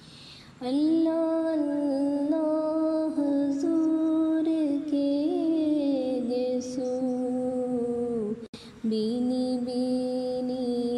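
A woman's voice singing a naat in long, drawn-out held notes that glide slowly in pitch, with a brief break about eight and a half seconds in.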